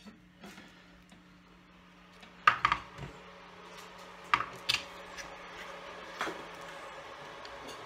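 A few sharp clicks and light clatters as a circuit board and hand tools are handled and set down on a stone worktop, in clusters about two and a half and four and a half seconds in, under a faint steady hum.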